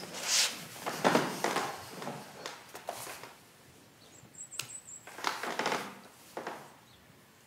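Soft rustling and handling noises of clothing and a wired earphone cable being put in, in several short swells, with one sharp click about four and a half seconds in.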